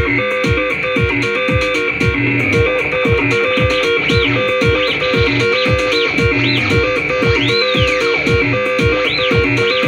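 1979 Maplin 5600S analogue synthesiser playing a repeating sequenced note pattern over a steady drum-machine kick beat. From about four seconds in, short high swooping blips join, and one long swoop falls away from high to low near the end.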